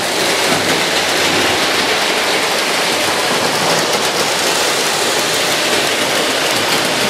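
O scale model train running fast on its track: a steady, loud rushing noise of wheels on the rails and motor, with a fine rapid ticking texture.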